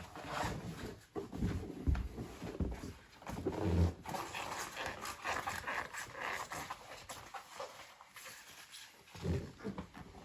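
Shibata rubber waders squeaking and rubbing irregularly as they are moved and worn, with a few low thumps in the first four seconds.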